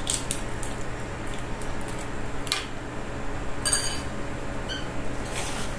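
Light clicks and taps of dishes and utensils being handled while preparing batter, with one short ringing clink of a dish or utensil about four seconds in and a smaller one a second later. A low steady hum runs underneath.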